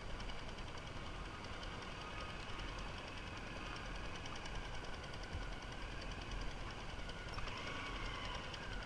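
Small motorbike engine running steadily as the bike rides along, with a rapid, even clatter over a low rumble.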